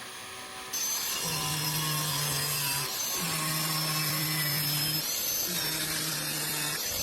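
A power tool cutting metal, starting about a second in with a loud hiss and a high whine that wavers in pitch.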